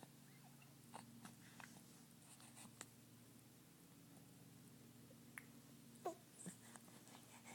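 Near silence: room tone with a faint steady hum, a few soft clicks, and one brief falling squeak about six seconds in.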